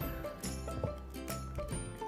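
Background music with steady held notes and a regular beat.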